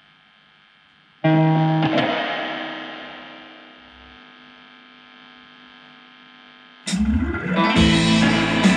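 Amplified music with heavy effects and distortion: a single chord struck about a second in rings out and slowly fades, then a louder, denser distorted passage starts near the end.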